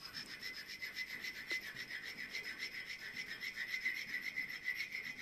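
A brass rod scraped rapidly back and forth on a polished granite surface, several strokes a second, with a high-pitched scraping ring, smearing brass onto the stone as a test patch.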